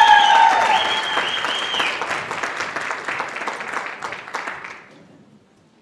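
Audience applauding a finished dance routine, with high whooping cheers for the first two seconds; the clapping thins and fades out by about five seconds in.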